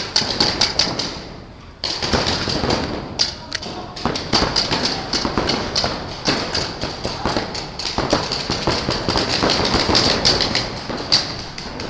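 Paintball markers firing in rapid volleys: a dense run of sharp pops, with a brief lull before two seconds in.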